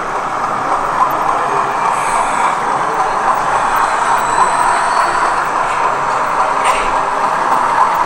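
A model diesel locomotive hauling coaches along the layout's track, heard over a steady, even background din.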